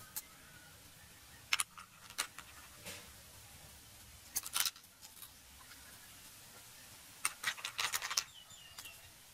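Cleaver blade clicking and tapping against a snail shell held in the hand as the snail meat is prised out. There are single sharp taps, a short cluster near the middle, and a quick run of clicks near the end, which is the loudest.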